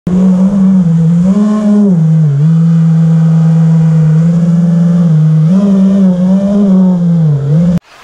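FPV quadcopter's brushless motors and propellers whining, the pitch rising and dipping with the throttle. The sound cuts off abruptly just before the end.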